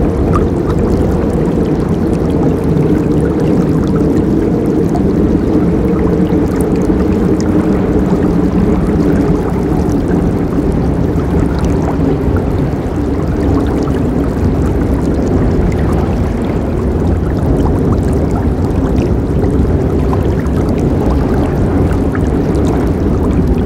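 A forest river running steadily, its water rushing loud and deep with a fainter splashing hiss above.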